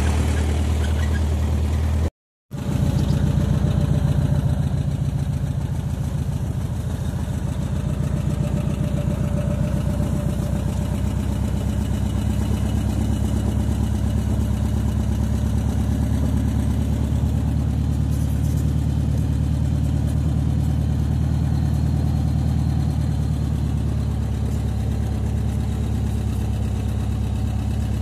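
A steady, low engine-like hum running without change, broken by a brief cut to silence about two seconds in.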